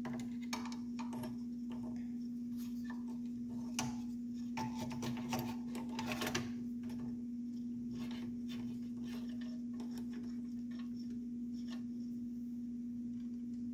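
Light clicks and rattles of hands fitting parts and wiring on a 3D printer's hot-end carriage, mostly in the first half, over a steady low hum.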